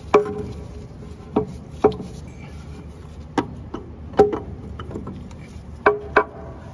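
Metal parts knocking and clinking as the Massey Ferguson MF285's PTO clutch pack assembly is worked onto its output shaft inside the cast-iron rear housing: about seven sharp knocks at uneven intervals, several with a short ring.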